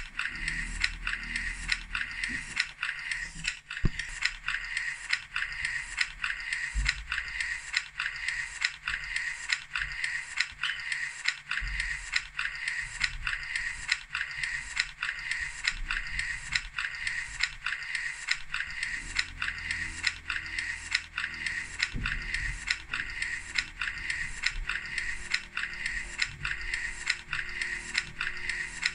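Steady mechanical clicking at an even pace of about two clicks a second, like a ratchet or gear mechanism, over a soft low rumble.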